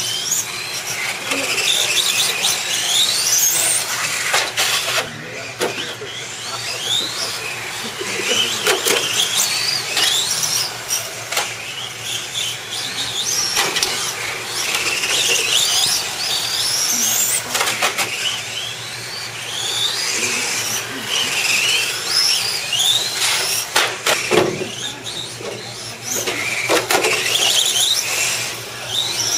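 Radio-controlled on-road touring cars running laps on concrete: a high motor whine that rises and falls over and over as the throttle is worked, with a short knock now and then.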